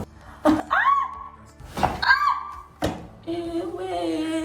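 Three sharp knocks of chiropractic adjustment thrusts, the first two each drawing a high, sliding yelp from a woman, then a long held cry from about three seconds in.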